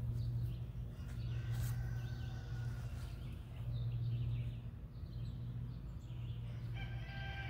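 Outdoor field ambience: a steady low hum with faint bird calls, one around a second in and another near the end.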